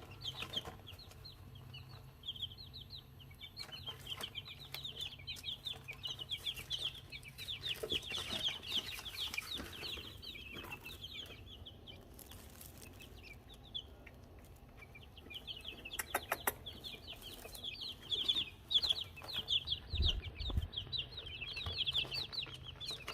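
Young chicks peeping, many rapid high chirps overlapping, thinning out for a few seconds midway. A few sharp clicks come about two-thirds through, followed by a low thump.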